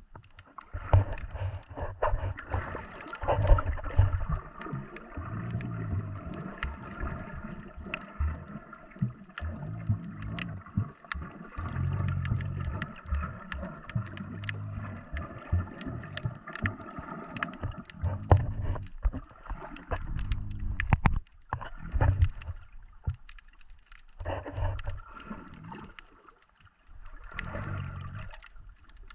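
Sound picked up by a camera held just under the sea surface while snorkeling: muffled water sloshing, with irregular low thumps and sharp clicks as the camera moves through the water. A faint steady hum runs underneath and fades out about two-thirds of the way through.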